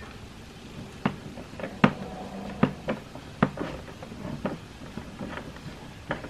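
Knife sawing through a loaf of banana bread on a wire cooling rack, with light, irregular clicks and knocks of the blade and rack, about one every second.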